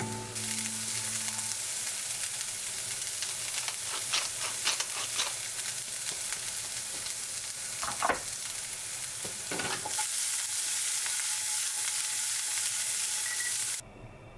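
Diced turnip stems and leaves sizzling in a nonstick frying pan, stirred with a spatula that scrapes across the pan several times. The sizzle cuts off suddenly near the end.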